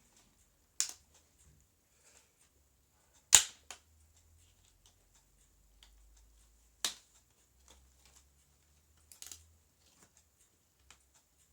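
Scattered sharp clicks and knocks in a small room, about five of them with near quiet between, the loudest a little over three seconds in.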